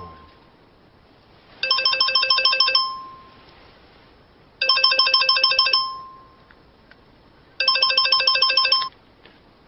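Telephone ringing: an electronic trilling ring sounds three times, each ring a little over a second long, about every three seconds.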